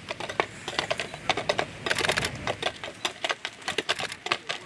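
Shod hooves of two draft horses walking on a paved towpath: an irregular clatter of hoof strikes, several a second.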